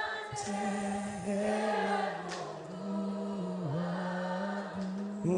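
Background choral singing: voices holding long, slow notes over a steady low tone.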